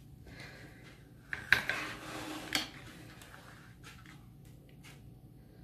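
Metal knife cutting through a layered puff-pastry Napoleon cake, with a light rustle and several sharp clicks of the blade against the plastic tray, the loudest about a second and a half in and fainter ones later.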